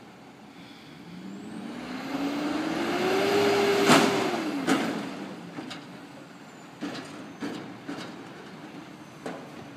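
Front-loader garbage truck's engine revving up, rising in pitch for a couple of seconds as its hydraulic forks lift a dumpster over the cab, with a loud bang about four seconds in. The engine then settles and the dumpster clanks several times as it is tipped and emptied into the hopper.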